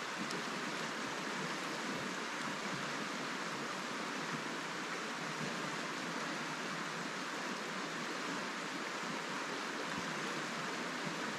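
Steady rush of flowing river water, an even hiss that holds unchanged throughout.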